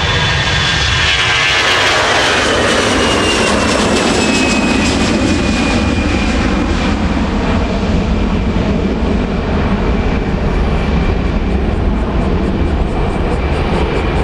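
Airbus A320-200 jet airliner taking off, its engines running at high power: a loud rumble under a high fan whine that falls in pitch over the first few seconds as the aircraft passes and moves away, then holds nearly steady.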